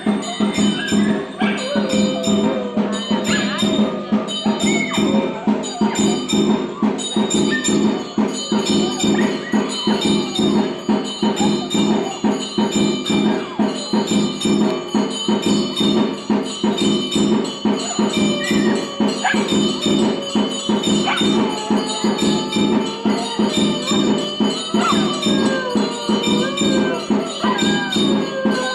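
Temple bells ringing continuously in a fast, steady rhythm during an aarti, with a dog howling along in long, wavering glides over the ringing.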